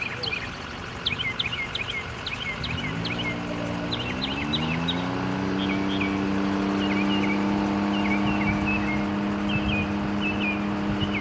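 Saab 2000's twin Rolls-Royce AE 2100A turboprops on landing: about three seconds in a propeller drone rises in pitch for a couple of seconds, then holds a steady two-note hum, typical of the props being brought up into reverse on the rollout. Small birds chirp throughout.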